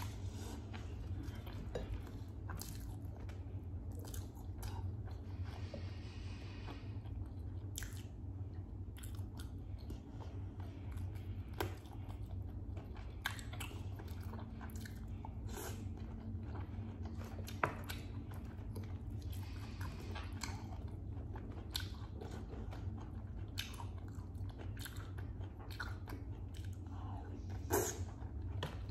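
Close-miked chewing and biting of roast chicken and soft cooked carrots: wet mouth sounds with many small sharp clicks, over a steady low hum.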